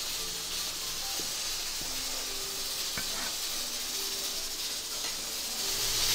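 Pressure cooker hissing steadily as steam escapes from its valve, with a few faint clicks.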